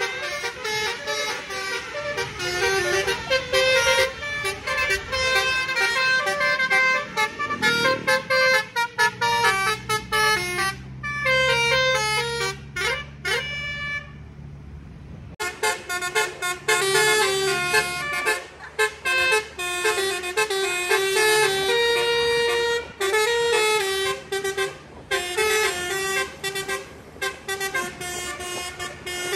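Basuri telolet musical horn set playing a fast melody of short, stepping horn notes. The horns break off for a moment about halfway through, then start the tune again.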